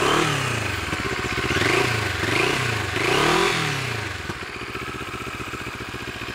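Moto Morini Seiemmezzo's 650 cc parallel-twin engine revved with four quick throttle blips while standing still, the pitch rising and falling with each one. It settles back to a steady idle about four seconds in.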